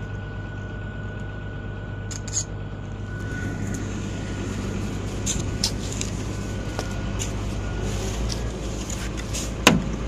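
A heavy vehicle's engine running steadily at low revs, a constant low hum, with scattered clicks and a single sharp knock near the end.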